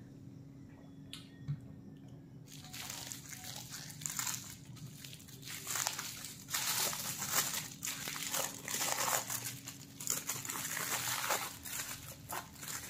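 Aluminium foil crinkling and rustling as it is peeled back by hand from a long wrapped roll. It starts about two and a half seconds in and gets louder in the second half. One single knock is heard about a second and a half in.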